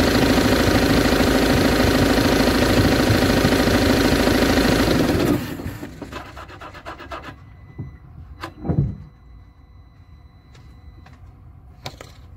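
Ford Transit engine running with strange noises, then stopping abruptly about five seconds in, followed by a few ticks and a dull thump. The owner suspects the crankshaft pulley has come apart.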